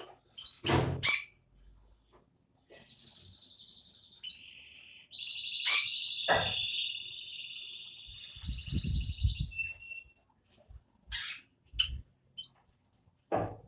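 Java sparrow chirping in a fast, high, buzzy trill that builds over several seconds, with scattered sharp clicks and knocks, the loudest about a second in and about halfway through.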